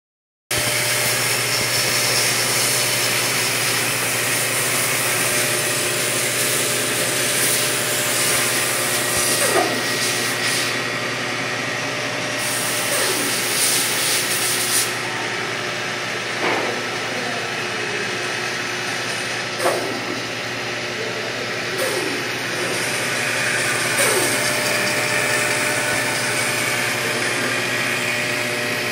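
Bandsaw running and cutting an arc in a wooden board: a steady machine hum and cutting noise, with a few brief falling whines every few seconds.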